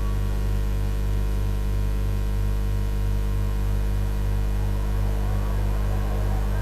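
Loud, steady electrical mains hum with a stack of overtones, part of an old archival soundtrack. Faint voices come in over it near the end.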